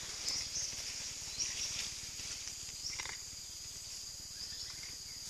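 Insects droning steadily at a high pitch, with short chirps repeating over the drone. A faint tap about three seconds in.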